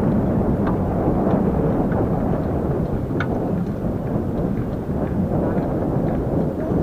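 Steady low wind rumble buffeting the camera microphone while riding a fat-tyre bicycle along a paved road, mixed with tyre noise and a few faint clicks.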